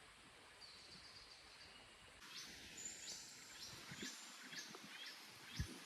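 Faint forest ambience with a small animal calling: a run of short, high notes that each fall in pitch, about two a second, starting about two seconds in.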